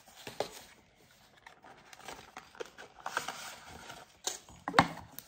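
Packaging being unwrapped and handled: rustling and scraping of wrapping and box parts with scattered light taps, and one sharp tap near the end.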